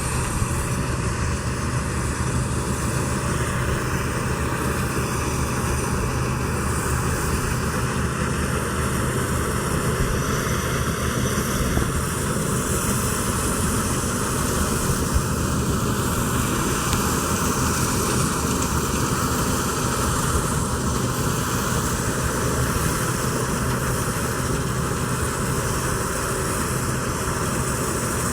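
Wheat harvesting machinery running steadily: a loud, even engine drone with a constant hum and the rushing noise of the threshing works, with no change in speed.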